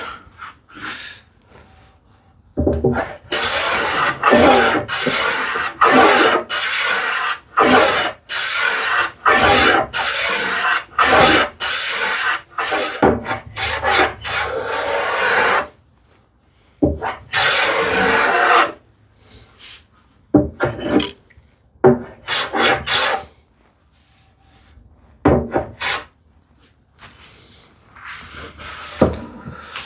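Small hand plane taking repeated strokes along the edge of a solid cherry board, shaving a light chamfer. A long run of back-to-back strokes, a short pause, then shorter, more spaced-out strokes.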